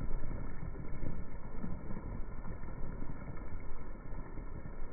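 Rain slowed down to match slow-motion footage, so it comes through as a deep, rumbling wash of noise with many small low thumps from the drops, and no high hiss at all.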